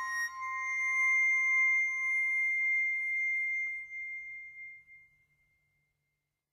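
Closing bars of a slow instrumental piece: a long held note rings on and fades out about five seconds in.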